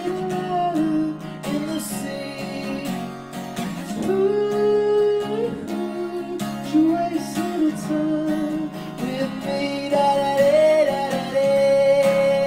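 A man singing a slow melody with long held notes over a strummed acoustic guitar.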